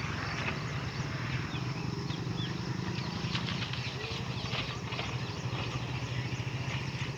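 Coaches of a Janshatabdi express train rolling past, wheels clattering on the track in a fast, even rhythm, with a low rumble that fades about four seconds in. Birds chirp now and then.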